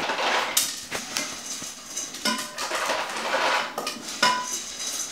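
Metal cooking pots clanking and knocking together on a hard floor as they are handled, with uncooked macaroni rattling between the knocks. A pot rings briefly twice, about two and four seconds in.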